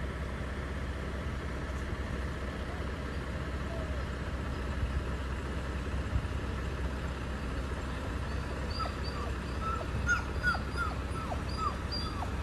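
Steady low vehicle engine rumble, and in the last few seconds a run of short, high squeaks or whimpers.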